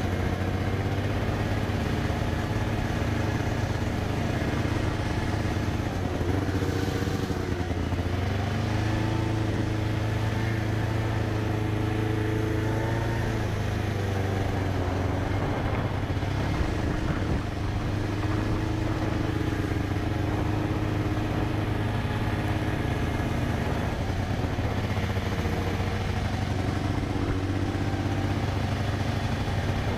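A vehicle's engine running continuously while under way, its pitch rising and falling slowly as the speed changes.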